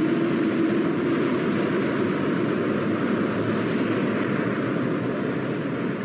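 Sound effect of an Eagle spacecraft's engines at lift-off: a steady rushing hiss over a low hum, the hum fading after the first second or so. It drops away suddenly at the end.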